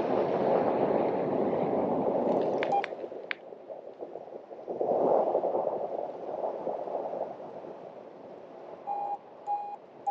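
Airflow rushing over the microphone of a paraglider in flight, in gusts, loudest in the first three seconds and again around five seconds in. Near the end a flight variometer gives three short beeps about half a second apart, its tone signalling climb in lift.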